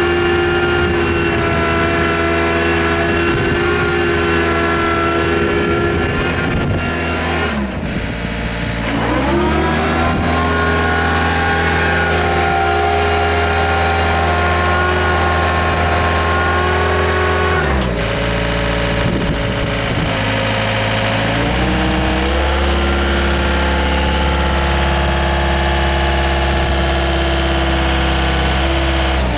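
The diesel engine and drivetrain of a Hyundai R555W-7 wheeled excavator running steadily while its wheels turn off the ground. The engine note dips and climbs back about a quarter of the way in, drops again a little past halfway, then settles at a new steady pitch.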